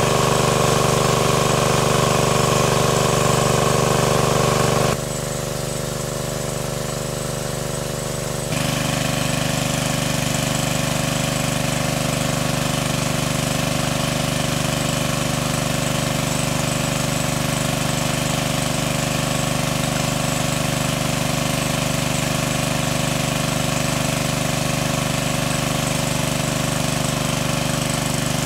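Small engine-driven water pump running steadily as it pumps water out of a pool, with water gushing from its discharge hose. The sound drops abruptly about five seconds in and comes back a few seconds later.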